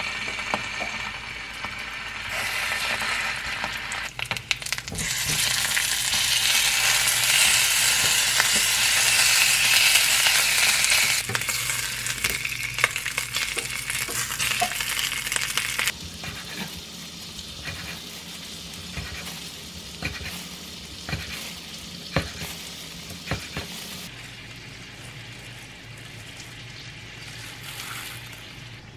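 Sausages sizzling as they fry in oil in a small square pan. The sizzle is loudest in the first half, then drops to a quieter sizzle with light clicks of metal tongs against the pan.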